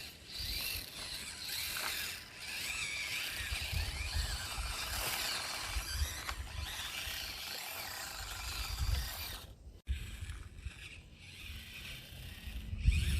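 Axial SCX24 micro RC crawler's small electric motor and gearbox whining as it crawls, the pitch rising and falling with the throttle, with a short break about ten seconds in.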